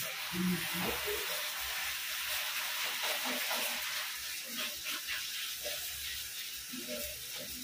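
Obbattu (sweet stuffed flatbread) sizzling on a hot tawa: a steady hiss that starts as it goes onto the pan.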